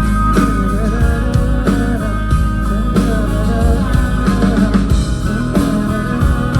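Live rock band playing the instrumental introduction of a song, guitar to the fore over a steady bass.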